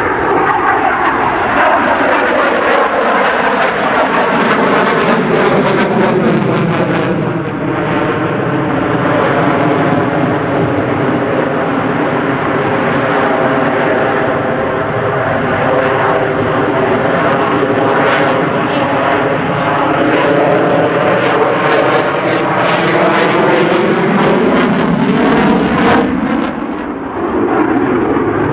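F-22 Raptor fighter jet's engines, loud and steady with a crackling edge, as the jet flies a display pass. A sweeping, phasing whoosh falls in pitch over the first half and rises again toward the end as the jet's distance changes.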